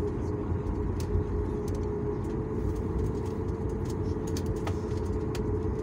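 Airliner cabin noise while taxiing: the jet engines at low thrust make a steady low rumble with a constant hum, with a few faint ticks now and then.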